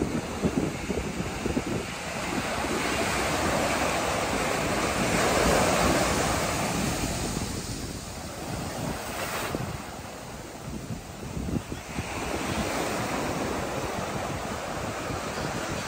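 Sea waves breaking and washing up a beach, the surf swelling and easing as each wave comes in, with wind rumbling on the microphone.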